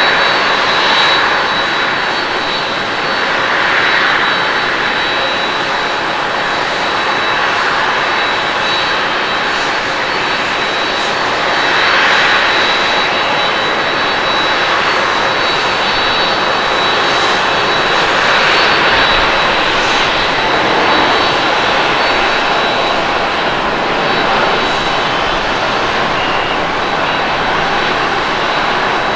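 Japan Airlines Airbus A350-900's Rolls-Royce Trent XWB turbofans during takeoff roll and climb-out: a steady jet roar with a thin high whine over it, swelling a little now and then.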